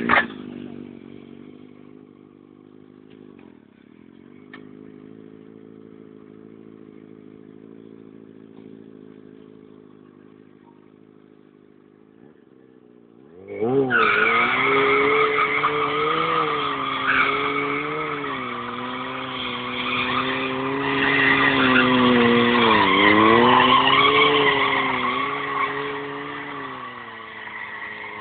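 Sport motorcycle engine running at low, steady revs, then from about halfway through held at high revs and much louder, the pitch dipping and rising. Along with it comes a dense screech typical of the rear tyre spinning and skidding on asphalt during stunt riding.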